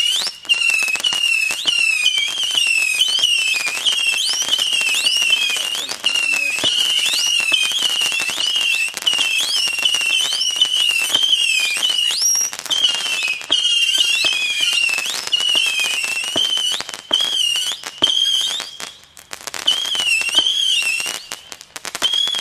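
Weco Electric Pink & Blue whistle-effect firework batteries firing a rapid string of whistling shots. The high whistles overlap, many starting with a quick upward sweep and then wavering, with pops and crackle between them. The whistles thin out and come in gaps near the end.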